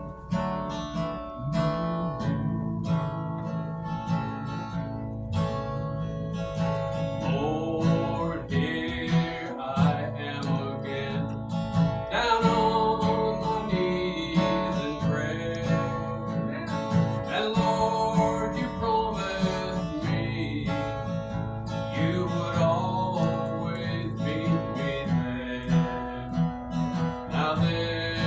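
Acoustic guitar strummed in a steady rhythm, playing a gospel tune, with a melody line that bends in pitch above the chords.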